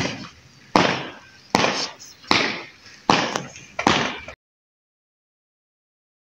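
Shoes stamping on a paved yard in formal marching steps, a firm stamp about every 0.8 s, six in all, then cut off abruptly a little past four seconds in.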